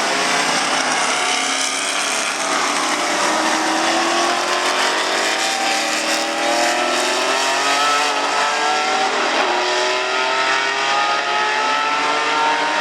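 Ferrari 512 M's 5-litre V12 racing engine accelerating hard, its pitch rising through several gears with short drops at each upshift.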